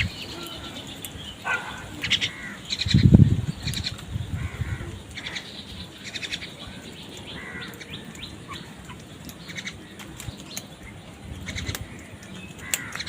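Crows calling, short harsh caws scattered through, over a low background. About three seconds in there is a loud low thump, the loudest sound in the stretch.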